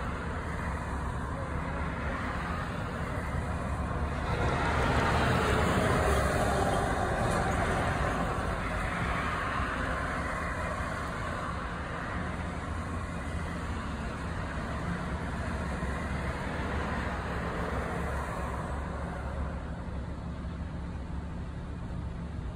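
Street traffic: a vehicle passes, swelling louder about four to eight seconds in and then fading, over a steady low engine rumble.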